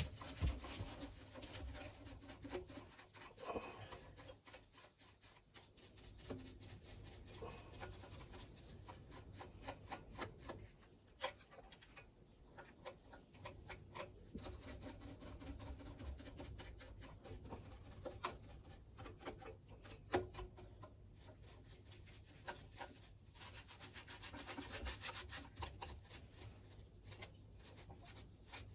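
A stiff brush scrubbing degreaser over the dirty top of a Hayter Harrier 2 lawnmower engine. It is a faint scratchy rubbing in many quick, irregular strokes.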